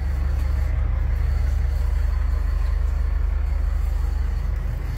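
Fishing boat's engine running with a steady low drone, heard from inside the wheelhouse.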